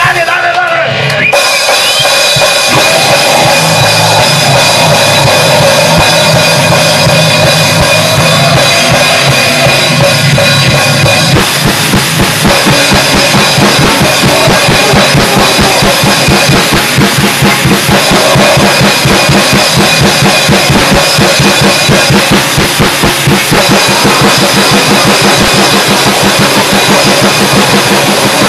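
Grindcore band recording: a drum kit played fast with bass drum, snare and cymbals under dense distorted guitar. The drumming grows faster and denser about eleven seconds in.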